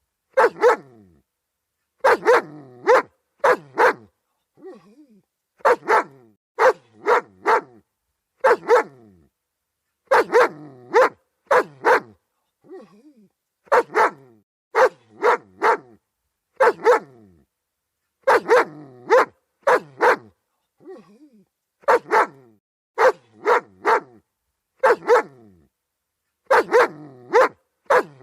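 German Shepherd dog barking repeatedly in quick volleys of two to four sharp barks, with short pauses between volleys and a few much softer sounds in some of the gaps.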